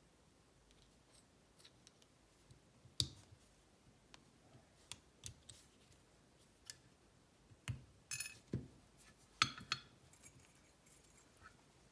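Scattered small metallic clicks and clinks as a Kwikset SmartKey lock cylinder is taken apart with a hook tool. There are a few sharper knocks about three, eight and nine and a half seconds in.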